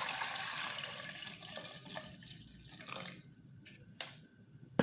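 Water being poured into a cooking pot over chicken pieces. The stream thins out and stops after two to three seconds, leaving a few drips. Two sharp knocks come near the end, the second one the loudest.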